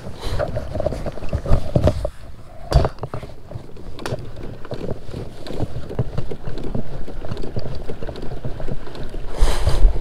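Kayak moving across a lake: water washing along the hull and wind buffeting the microphone, with a sharp knock about three seconds in and a louder rush of water or wind near the end.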